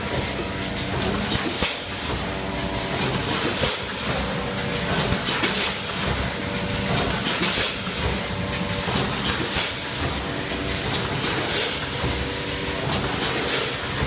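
Rotary given-bag pouch packaging machine running, with a steady mechanical hum. A short hiss of compressed air comes about every two seconds as the pneumatics cycle.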